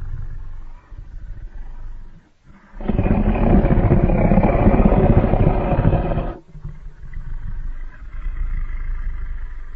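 Designed monster roar sound effect: a low rumbling growl, then a loud roar about three seconds in that lasts some three and a half seconds, then a lower growl.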